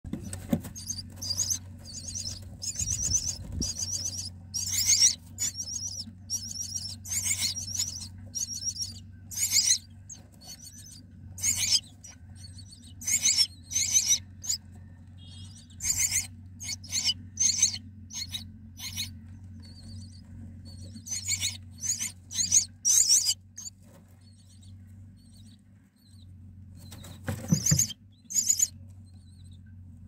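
Common myna nestlings begging: shrill, raspy squealing calls in short bursts, over and over, with a brief lull near the end before a last burst. A steady low hum runs underneath.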